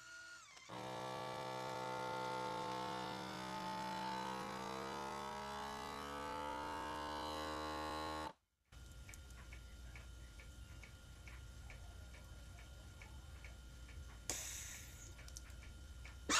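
FoodSaver vacuum sealer's pump running with a steady hum that shifts slowly in pitch as it draws the air out of the bag, then cuts off abruptly about eight seconds in. After a short pause a quieter hum follows with soft regular ticking, about three ticks a second, as the machine heat-seals the bag, with a brief click near the end.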